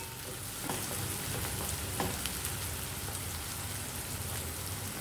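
Chopped onions and garlic sizzling steadily in hot oil in a pan, with a few light knocks of a wooden spatula stirring them in the first two seconds.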